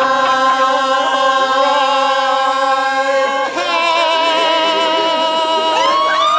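Several voices singing a long held chord together, shifting to a new chord about three and a half seconds in and again near the end.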